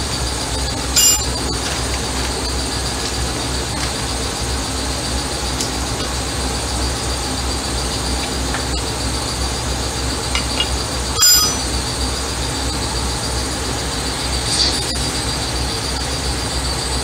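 Steady machine hum with a thin high whine, and two sharp metallic clinks of hand tools against steel front-suspension parts, about a second in and again about eleven seconds in.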